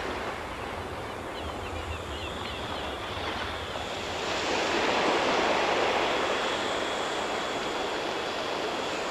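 Ocean surf washing onto a beach, a steady rush that grows louder about four seconds in.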